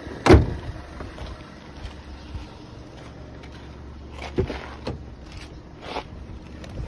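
Audi A5's bonnet slammed shut with one loud bang about a third of a second in, over the steady hum of the engine idling. Later come smaller clunks as the driver's door handle is pulled and the door opens, with another knock near the end.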